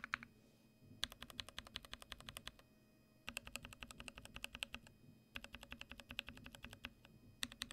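Typing on an NK65 Entry Edition mechanical keyboard with a clear case and 62 g Koala tactile switches lubed with Krytox 205g0. Quick runs of keystrokes come in bursts of about a second and a half with short pauses between, and a fourth run starts near the end.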